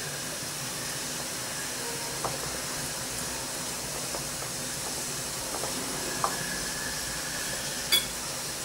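Steady background hiss, with a few faint taps as a hand mixes flour and liquid in a glass bowl.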